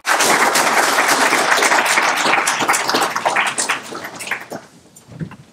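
Audience applauding, many hands clapping densely, then thinning out and dying away about four to five seconds in.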